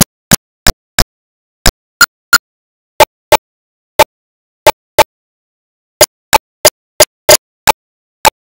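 Audio track breaking up: short, loud snatches of sound cut off into dead silence, on a steady beat of about three a second with some beats missing.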